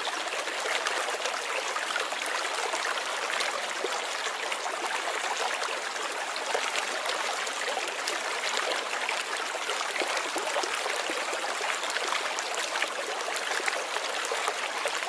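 Steady rush of flowing river water, with a fine trickling, splashing texture.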